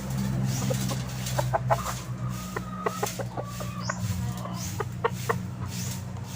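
Chickens clucking, many short clucks coming irregularly, over a steady low hum.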